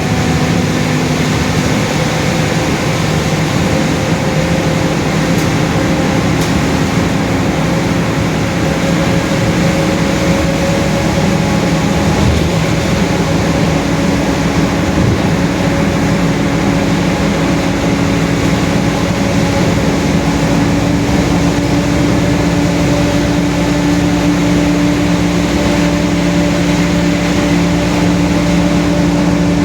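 Mercedes-Benz OF-1721 bus under way, its rear differential droning very loud: a steady whine with several tones over road and engine noise, the pitch rising slightly in the second half as speed picks up. The drone is louder than normal, the sign of a noisy differential.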